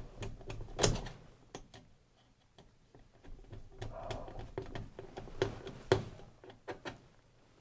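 Plastic parts of a steam humidifier being handled and fitted back together: a series of light clicks and knocks, the loudest about a second in and near six seconds, with a brief scuff in between.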